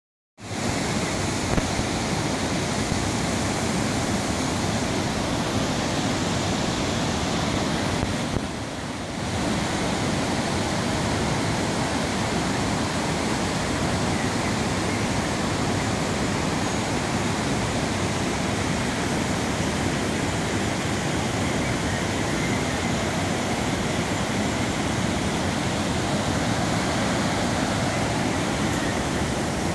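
River water rushing over rocks and small cascades: a loud, steady hiss, dipping slightly for about a second some eight seconds in.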